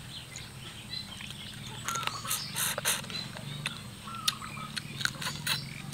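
Mouth chewing and crunching on a small crab's shell: a run of sharp cracks and crunches, thickest from about two seconds in.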